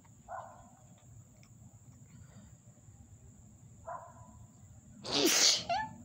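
A woman sneezes once, loudly, about five seconds in: a sharp burst ending on a short voiced note, one of a fit of tickly sneezes brought on by dust.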